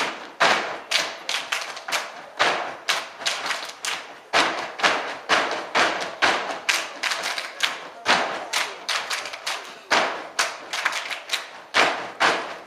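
A step team's stomps and hand claps in a unison step routine: a steady rhythm of sharp, even beats, about four a second.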